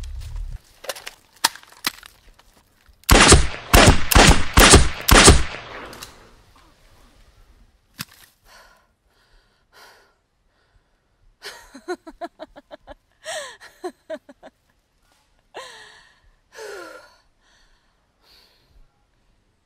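Gunfire: a few scattered shots, then a rapid burst of many shots about three seconds in that lasts a couple of seconds. After a few faint clicks comes a person's short gasps and falling groans near the end.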